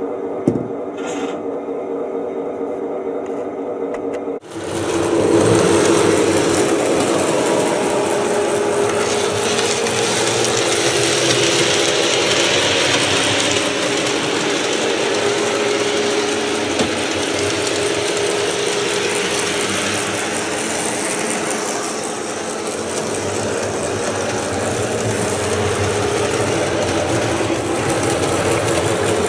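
Model locomotive's small electric motor and gear drive running steadily, a whirring, gear-grinding mechanical sound with wheel noise from the track. It follows a quieter steady hum that cuts off abruptly about four seconds in.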